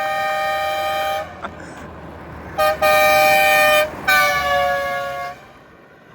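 Biltema air horn sounding two tones together in separate blasts: a held blast that stops about a second in, then a quick toot, a blast of about a second, and a final longer blast whose pitch sags slightly before it cuts off.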